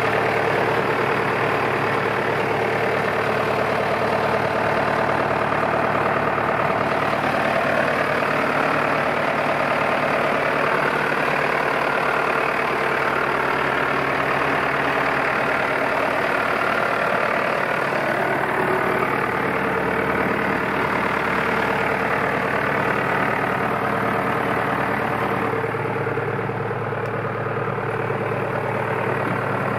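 John Deere 6200 tractor's four-cylinder diesel engine idling steadily. Its sound changes slightly near the end, when it is heard from inside the cab.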